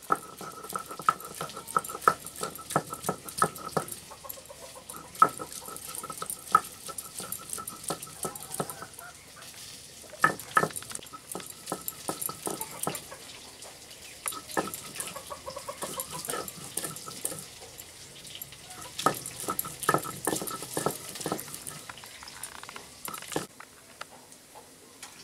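Stone muller rubbed and knocked back and forth on a flat stone grinding slab (sil-nora), grinding wet spice paste in a quick, uneven run of scrapes and knocks that stops shortly before the end. Chickens cluck in the background.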